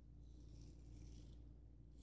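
Gold Dollar 66 straight razor scraping faintly through lathered stubble in one stroke of about a second, with the start of another right at the end, over a low steady hum.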